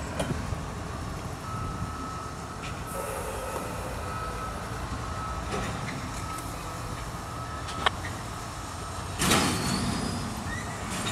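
Norfolk Southern diesel locomotives, one of them the Erie heritage unit, rolling slowly as light power with a steady low engine rumble. A thin steady whine runs for several seconds in the middle. A short burst of hiss comes about nine seconds in.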